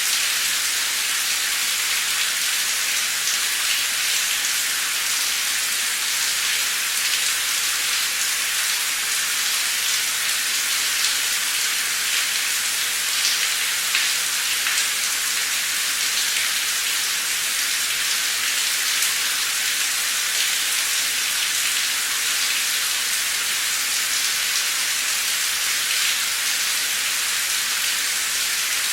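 Heavy torrential rain pouring steadily: a dense, even hiss of rain with scattered sharper drop hits.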